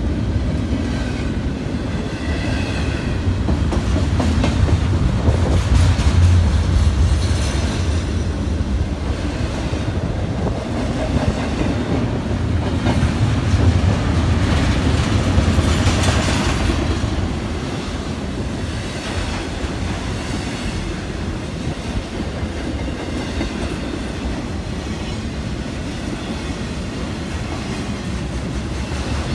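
Double-stack intermodal freight train rolling past: a steady rumble of wheels on rail with the clickety-clack of wheels over rail joints, easing off a little in the second half.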